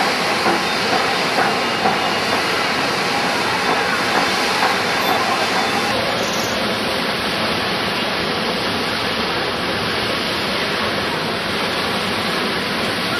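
Muddy water jetting from a burst pipe main under pressure, a loud steady rushing hiss. The main ruptured during a pressure test.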